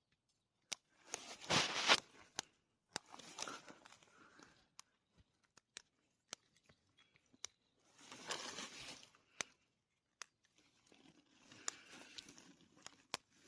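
Rustling and crackling of vegetation in several bursts, with sharp snaps, as wild fern shoots are picked by hand.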